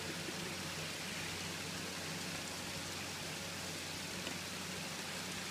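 Steady background hiss over a low hum, with one faint tick about four seconds in.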